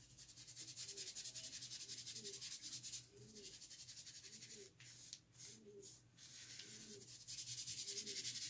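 Paintbrush scrubbing paint onto paper in quick short strokes: a dry, rasping hiss with a couple of brief pauses, louder near the end.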